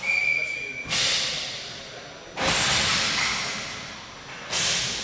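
A referee's whistle sounds a steady single note for about a second. It is followed by three sudden loud cracks from the ball hockey game, about a second in, near the middle and near the end, each echoing on in the hall for a second or two.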